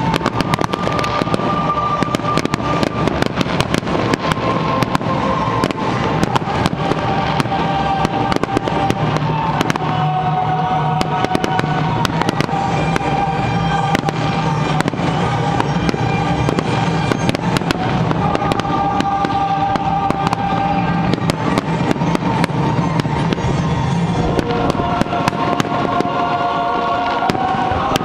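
Fireworks display: a dense, continuous crackle and pop of many bursts going off, with music playing held notes underneath.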